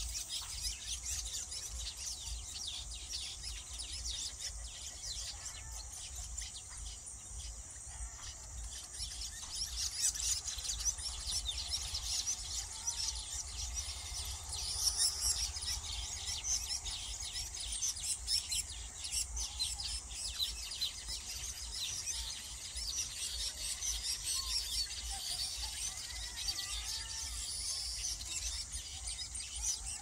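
Many small birds chirping and chattering at once, a dense high-pitched chorus without pause, over a low steady rumble.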